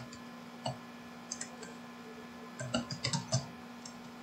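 Typing on a computer keyboard: a single keystroke near the start, then a few short bursts of keys, the longest about three seconds in.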